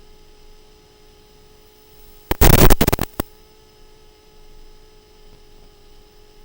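Faint steady electrical hum with a few fixed tones on an FPV goggles' DVR audio track. About two seconds in, a loud, choppy burst of noise lasts almost a second and ends with one sharp click.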